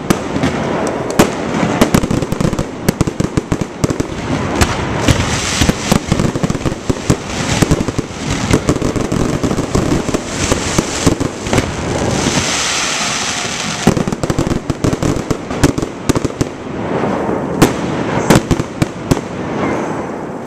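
Aerial fireworks shells bursting in a dense, rapid barrage, bangs overlapping with crackling. About two-thirds through, a steady crackling hiss takes over for a couple of seconds. The bursts thin out and stop near the end.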